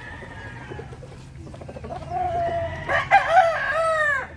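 A rooster crowing: one long call starting about two seconds in that swells and arches in pitch before breaking off near the end.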